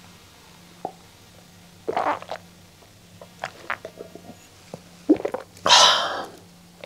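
A woman gulping down a glass of soju mixed with beer, with a few gulps followed by small swallowing clicks. Near the end she lets out a loud breathy exhale at the strong drink.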